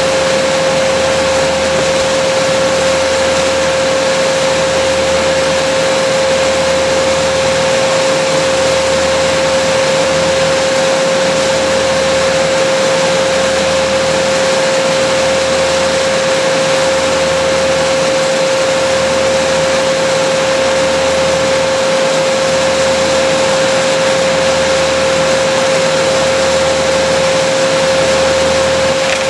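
Small engine-driven tree-work machine running steadily at high speed, with a strong unchanging whine and a slow low throb every second or two.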